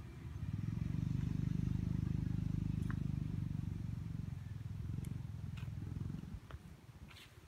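Low, evenly pulsing engine rumble from a motor vehicle, building about half a second in and fading away after about six seconds, with a few faint clicks.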